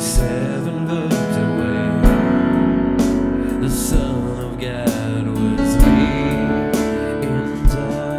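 Live worship music played on keyboards, with soft singing and a steady percussion beat of short hits about once a second.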